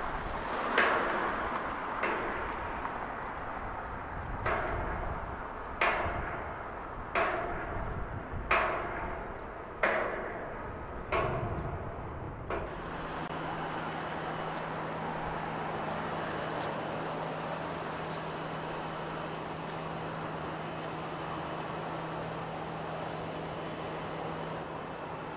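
Construction-site banging: heavy strikes at an even pace, about one every 1.3 seconds, each ringing briefly. About halfway through the strikes stop and a steady machinery hum with a low drone takes over, with a faint high whistle a few seconds later.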